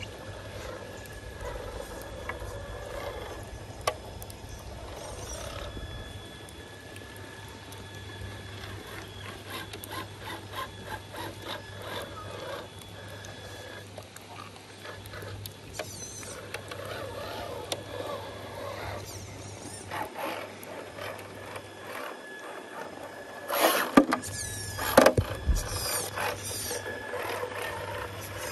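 MST scale RC crawler's electric motor and geared drivetrain whining and ticking as it crawls over wet rock. A few sharp knocks come near the end.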